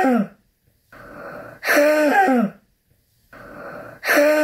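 A child's barking croup cough, repeated about every two and a half seconds. Each cough is a hoarse, pitched bark that drops in pitch and is preceded by a quieter rasping in-breath, the inspiratory stridor typical of croup.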